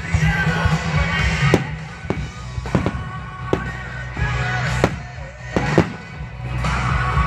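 Aerial fireworks shells bursting, about six sharp bangs a second or so apart, over music playing throughout.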